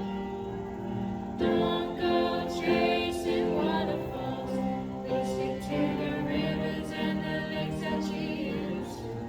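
Music with singing voices, growing louder about one and a half seconds in.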